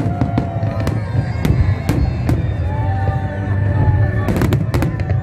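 Fireworks display: a string of sharp bangs over a continuous low rumble of aerial shells, with several bangs close together near the end. Music plays along with it.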